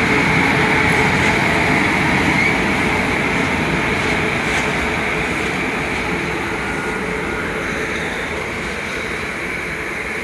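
Grain freight train rolling past on the rails, a steady rolling noise that slowly fades.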